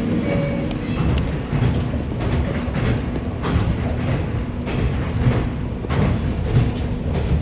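Inside a moving passenger train: a steady running rumble, with the wheels clacking over rail joints every second or so.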